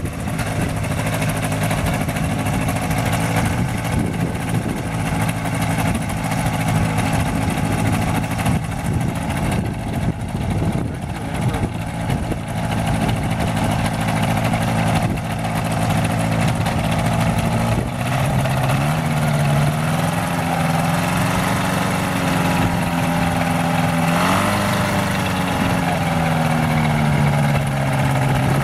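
Ultralight trike's engine idling steadily with its pusher propeller turning; about two-thirds of the way through the pitch rises and wavers as the throttle is opened and eased, with a short rev near the end.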